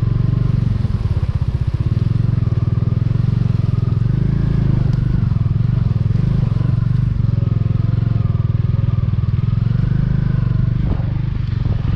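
Motorcycle engine running steadily as the bike rides over a rough gravel and stone track: a continuous low rumble.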